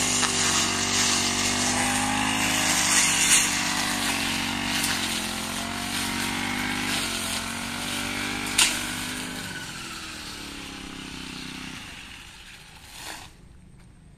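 Four-stroke brush cutter engine running at cutting speed, its pitch rising and falling as the blade works through grass, with two sharp clicks. It drops to a lower speed after about eight seconds, then winds down and stops about twelve seconds in.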